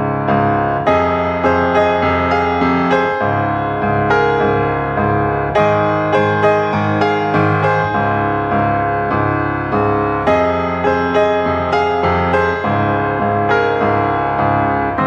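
Background piano music, notes struck at a steady, unhurried pace.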